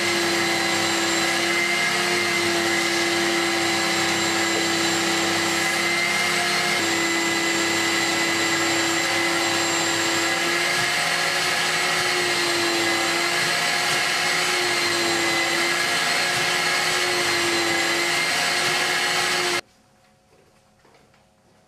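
Vacuum cleaner motor running steadily, with a strong hum whose pitch wavers slightly as the load changes, used to dry-clean fabric; it cuts off abruptly near the end.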